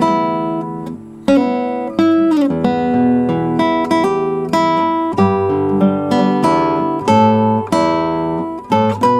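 Solo nylon-string classical guitar playing a folk-song melody with chords, each note plucked and left to ring. The sound dips briefly about a second in, and one note slides down into the next about two and a half seconds in.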